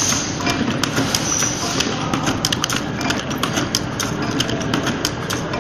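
Automatic heat-shrink sleeve wrapping machine for dry-cell batteries running: a dense, irregular clatter of sharp clicks as the cells feed along the guide and pass through the wrapping station, over steady mechanical running noise.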